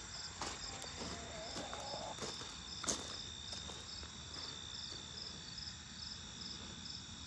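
Crickets chirping: an even, repeating chirp about twice a second over a continuous high trill. A few faint knocks sound in the first three seconds.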